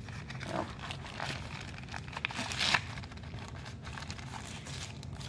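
Packaging rustling and crinkling as parts are handled and lifted out of a box, with scattered small clicks and a louder rustle a little under three seconds in.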